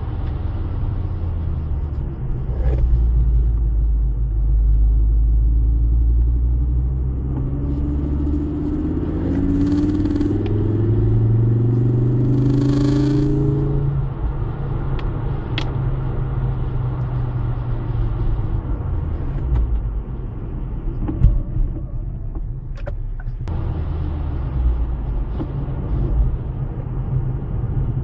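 Ford Focus ST's engine and tyre rumble heard from inside the cabin on wet tarmac. The engine note climbs under acceleration from about eight seconds in, then drops back as the throttle is lifted about halfway through.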